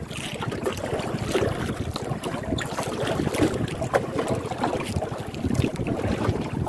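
Wind buffeting the microphone over water slapping against the hull of a small outrigger boat at sea, with a few short knocks.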